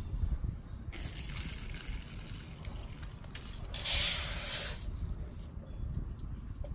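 Frothy, soapy water poured from a rock tumbler barrel through a mesh strainer into a plastic tub, splashing and running, with a louder rush about four seconds in as the barrel tips further and the steel tumbling media spill into the strainer.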